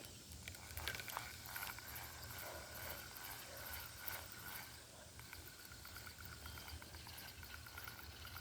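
Faint outdoor ambience of insects chirping steadily, with fine high ticking and a thin steady tone.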